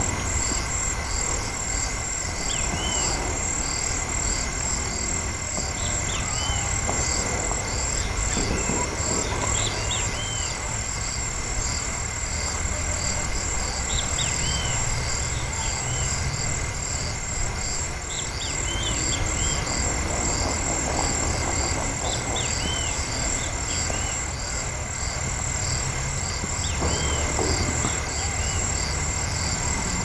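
Birds in a tree giving short, repeated chirps over a steady, high, finely pulsing insect chorus, with a low rumble underneath.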